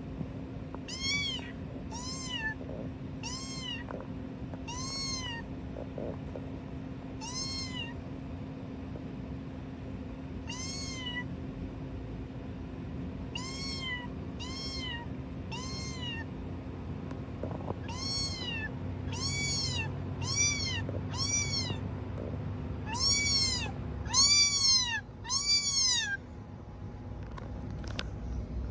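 Meowing: a string of short meows, each rising then falling in pitch, about one every second or two with a couple of pauses, coming louder and closer together near the end.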